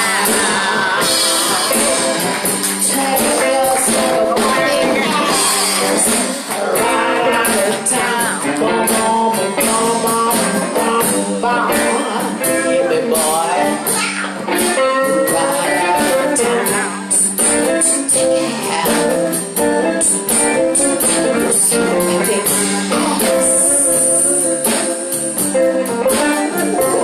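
Live blues band playing an instrumental passage, a guitar lead over bass and drums.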